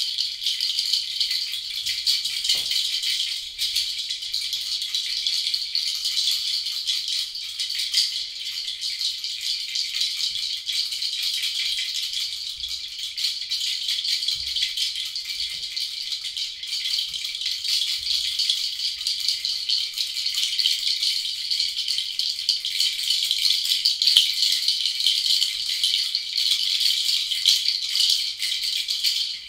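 A hand-held shaker rattled continuously as an even, high, grainy hiss with no pitched tone.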